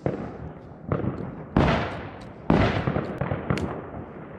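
New Year's fireworks exploding: four loud bangs roughly a second apart, each dying away in echo, followed by a few small cracks.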